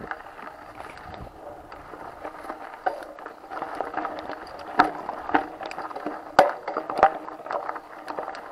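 Mountain bike rolling over a gravelly dirt trail: steady tyre noise with the bike rattling, and sharp clicks and knocks as it jolts over stones, the hardest about five, six and a half and seven seconds in.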